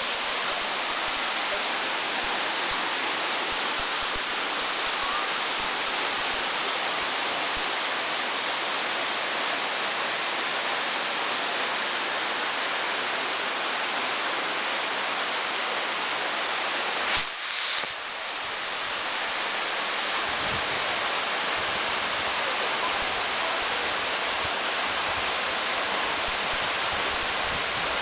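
Waterfall pouring, a constant rushing noise. About two-thirds of the way through it is broken by a brief swish and a short drop in level, then returns.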